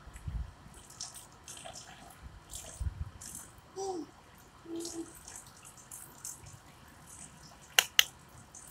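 A thin stream of water trickling down a tiled wall and dripping and spattering into a plastic tub in irregular patters. A baby makes a few brief coos around the middle, and two sharp clicks come near the end.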